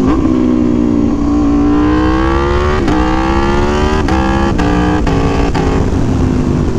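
Aprilia Tuono V4 1100's V4 engine rising in pitch, then a quick run of clutchless gear changes about half a second apart, each a short sharp break and step in the engine note. These are the quickshifter's autoblipper blipping the throttle to match revs on downshifts.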